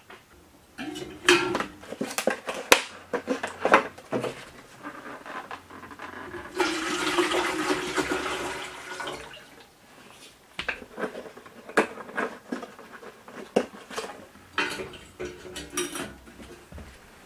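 Scattered knocks and clatter of things being handled, with a rush of running water for about three seconds in the middle.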